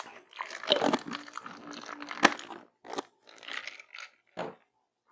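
Close-miked eating sounds: chewing and wet mouth noises in quick, irregular bursts, with a sharp click a little after two seconds and a few more near the end.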